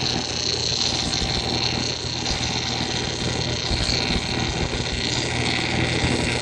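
Stick-welding arc burning on an electrode against fire brick: a continuous crackling sizzle over a steady electrical hum.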